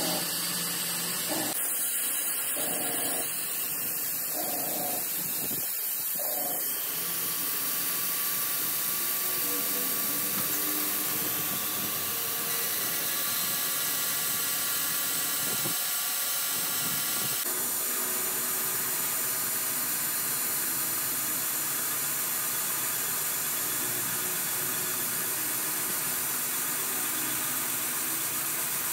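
Small grinding wheel of a lathe tool-post grinder grinding a spinning steel part, a steady high hissing grind. The sound changes abruptly about seven and again about seventeen seconds in.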